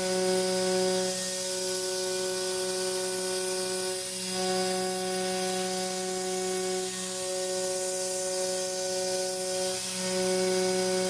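CNC router spindle at 11,200 rpm with a 3/16-inch two-flute AlTiN carbide end mill side-milling steel: a steady pitched cutting whine from the flutes striking the metal, with a lower spindle hum and a steady hiss from the coolant nozzle. The whine's tone changes about four seconds in and again near ten seconds.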